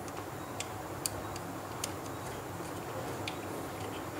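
Small screwdriver turning the terminal screw of a two-way switch to clamp a wire, giving faint, irregular light ticks about twice a second.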